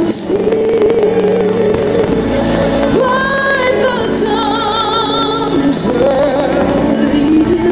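Music with a singing voice, its held notes wavering with vibrato.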